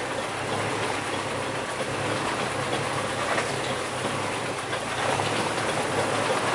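An off-road 4x4 driving on a rough track: steady engine and road noise with a few light knocks.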